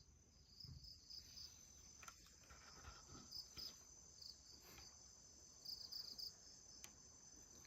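Faint crickets chirping: short pulsed trills repeating over a steady high-pitched drone.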